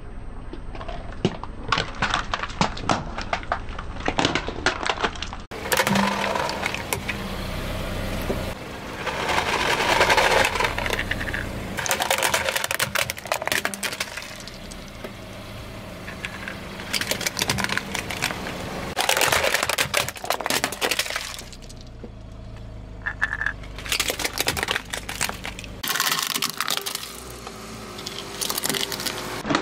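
Plastic toys (building bricks and a plastic toy vehicle) cracking, snapping and crunching under a slowly rolling car tyre, in several bouts of dense cracking with brief lulls between.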